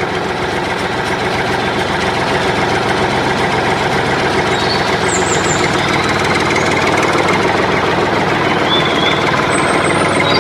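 An engine running steadily at an even level, with a few faint high chirps above it.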